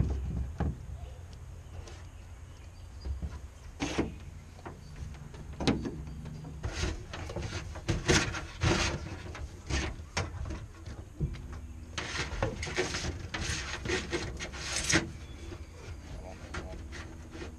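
Irregular rubbing, scraping and knocking as electrical wires are handled and pushed under the casting deck of an aluminum jon boat, with the strokes coming thicker and louder from about halfway through.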